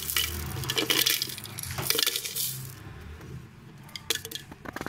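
Whole dried red chillies, cumin seeds and garlic cloves poured into a grinder jar, a quick pattering of small clicks and rattles against the jar for about three seconds, then a few separate clicks near the end.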